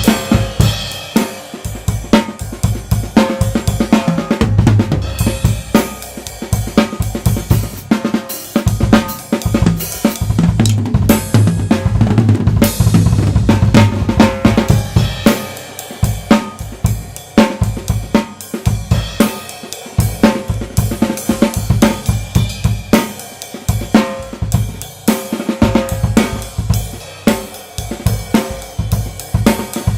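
Tama Swingstar drum kit played continuously: snare, bass drum, hi-hat and Meinl cymbals in a steady stream of strokes, recorded through a single Blue Yeti USB microphone.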